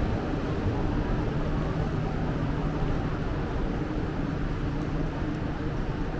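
Steady low mechanical hum and rumble, even throughout, with no distinct knocks or events.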